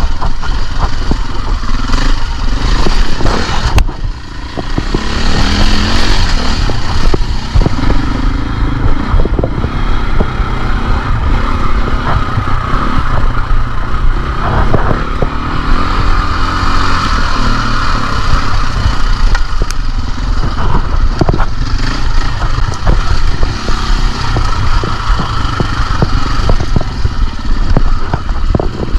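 KTM dirt bike engine running hard on the trail, its pitch rising and falling over and over as the throttle is opened and closed, with scattered knocks and rattles.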